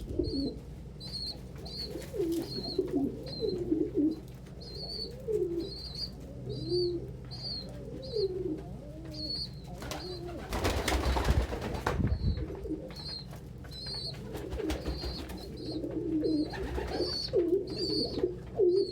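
Pigeons cooing, several low warbling coos one after another. A high peep repeats about once a second throughout, and there is a broad rustle about ten seconds in.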